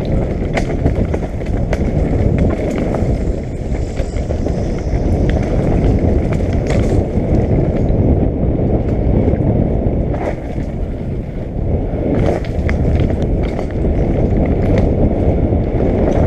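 Downhill mountain bike ridden fast down a rough dirt trail, heard from a helmet-mounted camera: heavy wind rush on the microphone with the bike clattering over roots and rocks, frequent sharp knocks.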